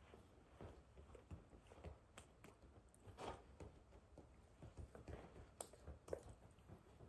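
Near silence with faint scattered taps and rustles from hands and clothing moving as a person signs.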